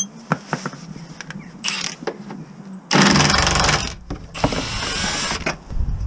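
Hand-held power tool run in two bursts of about a second each, the first the loudest and the second rising in pitch, after a few light clicks of metal tools being handled.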